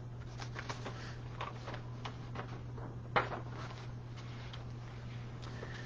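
Quiet room with a steady low hum and faint, scattered small clicks and rustles. There is one sharper click about three seconds in.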